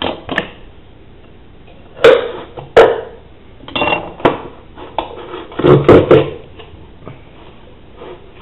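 Sharp knocks and clatters of a plastic hand-operated potato fry cutter being handled and worked on a countertop as potatoes are cut into fries. There is a double knock about two seconds in and a quick cluster of hits about six seconds in.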